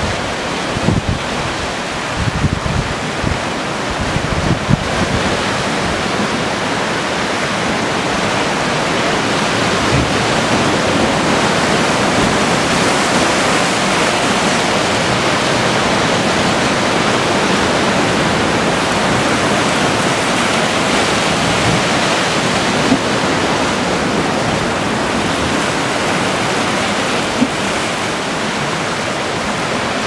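Sea surf washing and breaking over rocks in a continuous rush of foaming water, swelling slightly about ten seconds in. Low gusts of wind buffet the microphone in the first few seconds.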